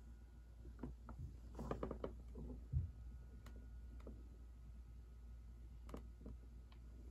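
Faint clicks and knocks of a plastic toy garbage truck being handled and turned over, with a soft low thump a little before three seconds in.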